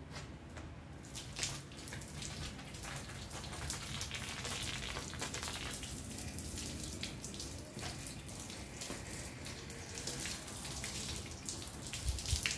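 Water from a hose spraying onto a bare aluminium bicycle frame, splashing off it and running onto the ground in a steady hiss.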